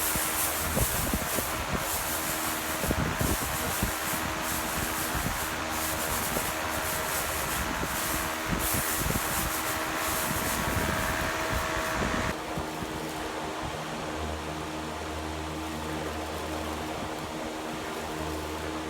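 Hard red winter wheat being threshed and winnowed by hand: an uneven rubbing, scraping noise with scattered knocks over a steady hum. About twelve seconds in it drops abruptly to a quieter steady hum.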